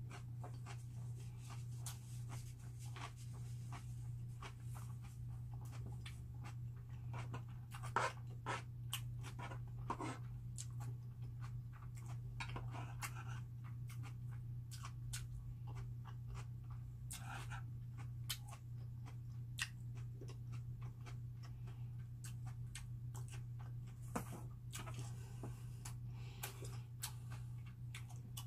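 Close-up chewing of bread: small, irregular mouth clicks and soft crunches, with a few louder handling noises, over a steady low electrical hum.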